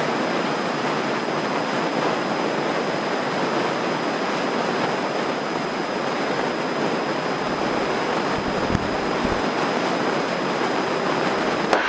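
Steady rushing hiss of airflow and engine inside a single-engine light airplane's cabin in flight. It cuts in and out abruptly.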